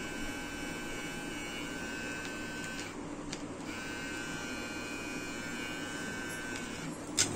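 Cordless electric hair trimmer running with a steady high whine. It stops for a moment with a click about three seconds in, runs again, and is switched off with a click near the end.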